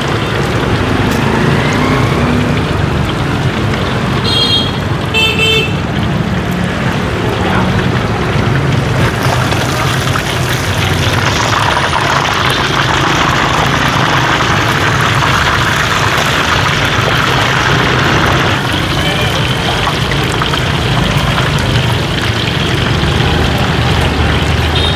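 Busy street traffic: vehicle engines running steadily under a continuous noise, with two short horn toots about four seconds in and another near the end, and voices murmuring in the background.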